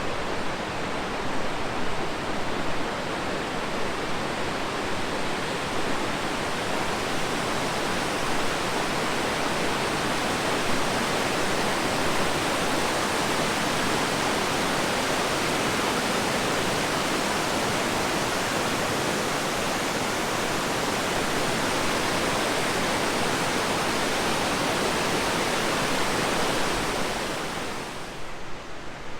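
Willow River waterfall: a steady, even rush of falling water that drops somewhat in level near the end.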